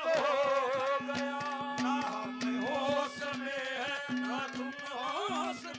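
Haryanvi ragni folk music: a wavering melodic lead over an on-and-off held low drone note, with quick hand-drum strokes throughout.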